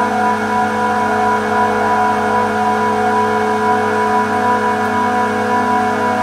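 Steady machine-room drone of running refrigeration compressors: a constant hum with several steady tones and no change in level.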